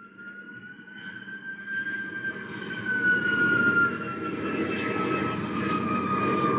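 Radio sound effect of a jet aircraft flying over: a rumbling roar with a high whine that grows loud over the first three seconds, its pitch rising a little and then slowly falling as it passes.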